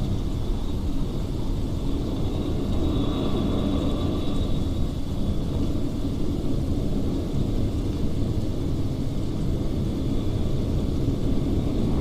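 A steady low rumble with a faint, thin high whine above it.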